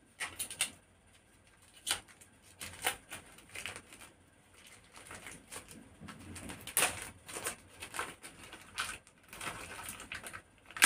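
Plastic courier envelope being torn open by hand: an irregular run of short ripping and crinkling sounds in bursts with brief pauses, busiest in the second half.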